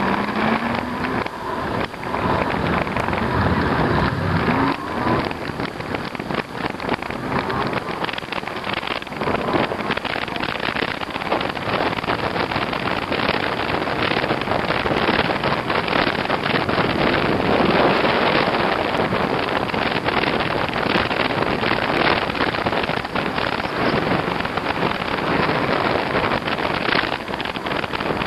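Steady wind buffeting and road noise from riding an e-bike along a post-blizzard street, with a short rising whine at the start.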